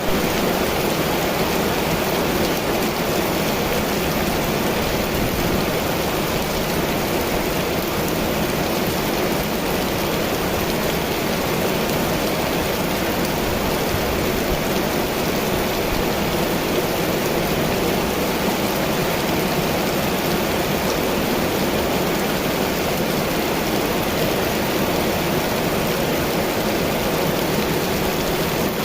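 Heavy rain falling steadily in a storm, an even, unbroken hiss.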